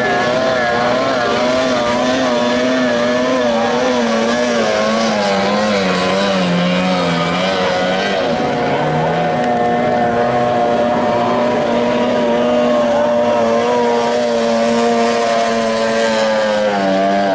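Outboard motors of 30 hp racing tunnel boats running at high revs. Their pitch wavers and slides for the first several seconds, then holds more steadily.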